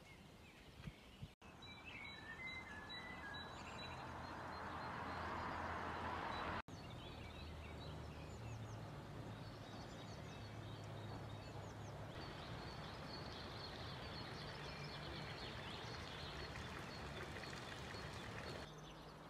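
Small birds chirping and twittering over a steady rushing background noise, with a low hum underneath for most of it. The sound drops out for an instant twice, where clips are joined.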